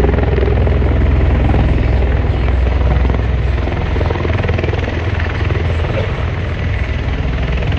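Two V-22 Osprey tiltrotors hovering low in helicopter mode as one settles onto the ground, their proprotors making a loud, steady, deep pulsing rotor noise. The deepest part of the sound eases off somewhat about halfway through.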